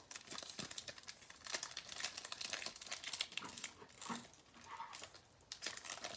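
Foil wrapper of an Elite Extra Edition baseball card pack crinkling and tearing as hands peel it open, with a short lull about five seconds in.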